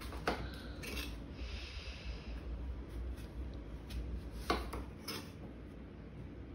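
Kitchen knife cutting apples on a cutting board: a few sharp knocks of the blade hitting the board, the loudest about four and a half seconds in, with a short slicing scrape in between.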